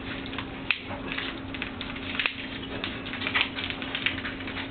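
Empty plastic water bottle crackling as it is twisted tight, top and bottom turned in opposite directions, in irregular sharp clicks and crinkles.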